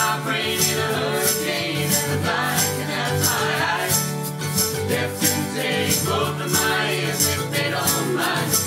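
Acoustic folk band playing: a strummed Yamaha acoustic guitar and a mandolin, a shaker keeping a steady beat about twice a second, and several voices singing together in harmony.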